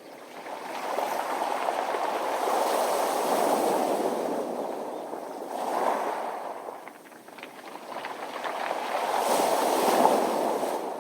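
Surf breaking on a beach of round pebbles and drawing back, with the stones rattling as the water runs off them. It comes in two swells: the first builds over the first few seconds and eases about seven seconds in, and the second builds from about eight seconds in.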